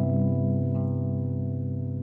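Semi-hollow-body electric guitar chord ringing out and slowly fading after a strum, with a faint new note joining about three quarters of a second in.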